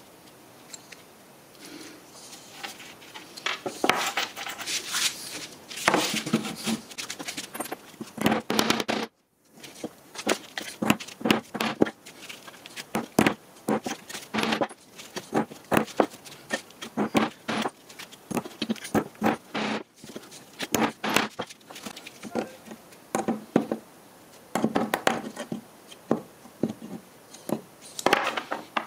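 Irregular clicks, taps and scrapes of small hard objects being handled on a wooden bench: plastic cable clips and steel screwdriver bits picked up, set down and pressed into place.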